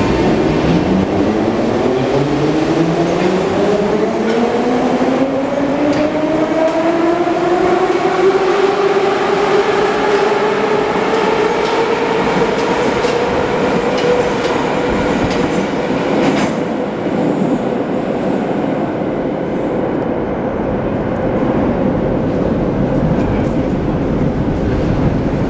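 81-717.5 metro train accelerating out of the station: its traction motors give a whine that rises in pitch for about fourteen seconds, with wheel clicks over the rail joints. About two thirds of the way through, the clicks and the highs drop away and the whine levels off and fades as the train recedes.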